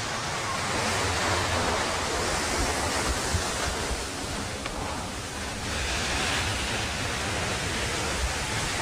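Steady rush of a waterfall in full rainy-season flow, a continuous roar of falling and churning water.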